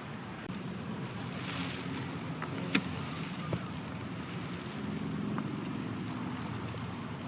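Steady outdoor background noise with a low hum and wind-like hiss, a brief rush of hiss about a second and a half in, and a single sharp click near the three-second mark.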